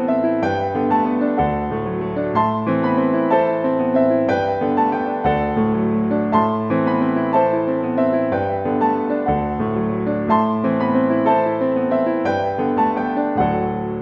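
Instrumental lo-fi jazz piano music: piano chords and melody notes over a sustained low bass line.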